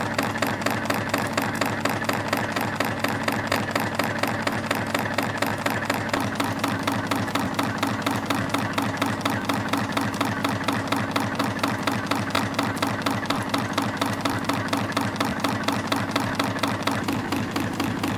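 CNC spring coiling machine running at production speed, coiling 1.2 mm wire into compression springs at about 252 a minute. Each cycle gives a sharp tick, about four a second in an even rhythm, over the machine's steady running noise.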